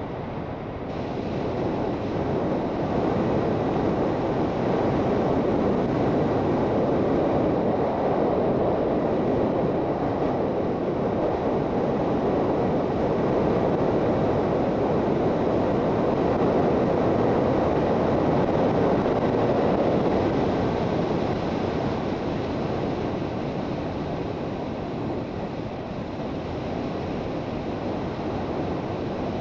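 Steady wind rush over the microphone of a Suzuki GSX650F motorcycle riding at speed, with engine and road noise blended underneath. It swells a few seconds in and eases off after about twenty seconds.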